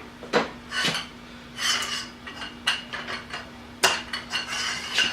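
Metal hand tools clinking and knocking as they are handled: a few sharp knocks, the loudest about four seconds in, between bouts of rattling, ringing clinks.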